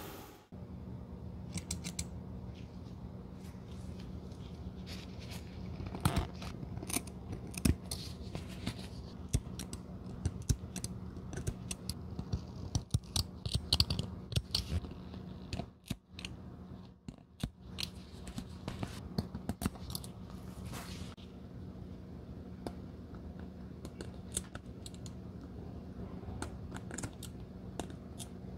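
Scissors and a blade cutting through the rubber sole and foam edge of a Birkenstock sandal: a run of short, irregular snips and cuts, loudest between about six and fourteen seconds in, over a low steady hum.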